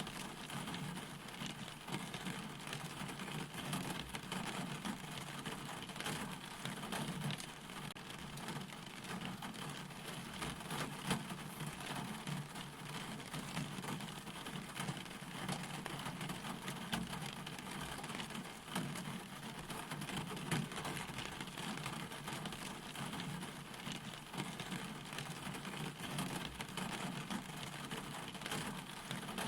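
Steady rain falling, with many separate drops striking close by throughout.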